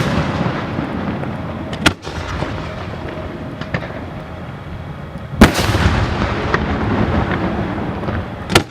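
Aerial fireworks shells bursting at close range: three sharp bangs a few seconds apart, the loudest about halfway through, a couple of fainter cracks, and a steady rumbling crackle in between.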